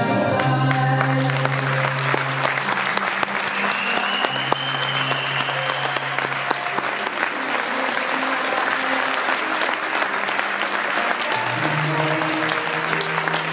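Crowd clapping steadily, a dense patter of handclaps, over music playing through the hall's speakers.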